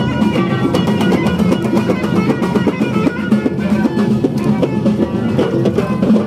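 Music with drums and percussion playing a dense, steady rhythm over plucked-string notes.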